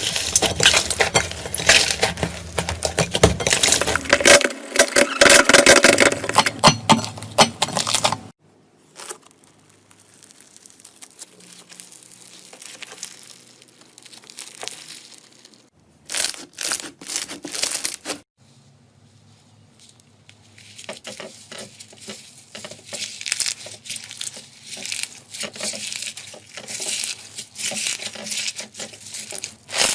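Slime being squeezed, stretched and poked by hand, with dense crackling and crinkling. It is loud for the first eight seconds, softer and quieter in the middle with a short loud patch, and crackling again near the end.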